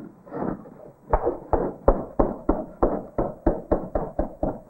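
Chalk striking and scraping on a blackboard in a quick run of short strokes, about four or five a second, as lines are hatched in.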